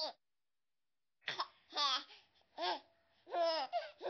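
A baby babbling and cooing in short, high-pitched sounds, about five in a row with silent gaps between.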